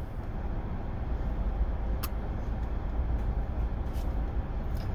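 Steady low rumble and hiss of a car's interior, with one faint click about two seconds in.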